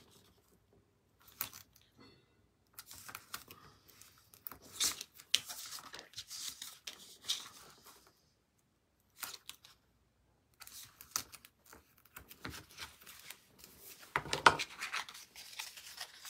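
Double-sided adhesive tape being torn and pressed onto the edges of a cardstock piece, with the rustle and rub of the paper being handled. It comes in irregular short spells with pauses between them, the loudest about two seconds before the end.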